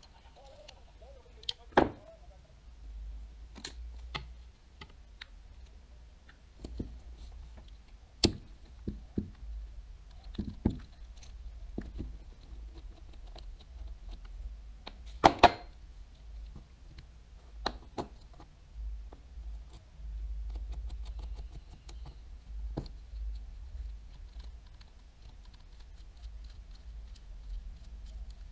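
Irregular light clicks and small knocks from a Daiwa Tatula 100 TWS baitcasting reel and tools being handled during disassembly, with a sharper double click about halfway through.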